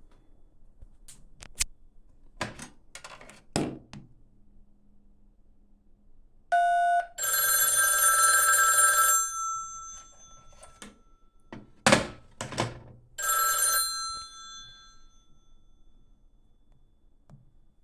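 Electromechanical bell of an old Western Electric telephone ringing in two bursts: about two seconds, then after a pause about one second that fades away. A short electronic tone comes just before the first ring, and clicks and clunks of the phones being handled come before each ring.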